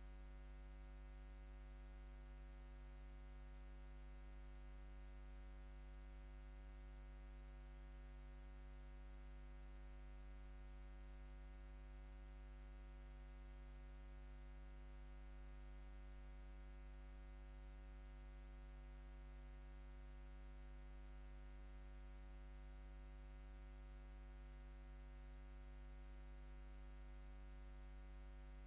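Near silence: a steady low electrical hum with faint hiss, unchanging throughout.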